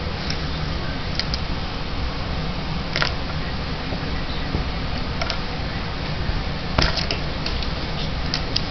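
Steady background hiss and rumble with a few light, sharp taps and clicks, about three seconds in, near five seconds and a small cluster near seven seconds, from a pen being knocked about on a wooden tabletop.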